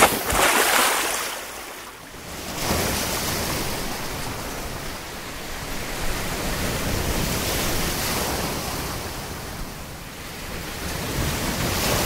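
Sea waves breaking and washing in over the shallows, the rush of water swelling and fading every few seconds.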